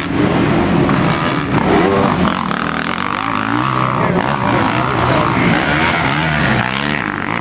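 Motocross bikes' engines racing on the track, revving up and down as the riders work the throttle through jumps and turns; several engine notes overlap, rising and falling in pitch.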